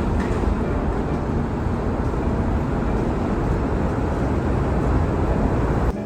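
Steady outdoor rumble, heaviest in the low end, cutting in abruptly and dropping suddenly near the end.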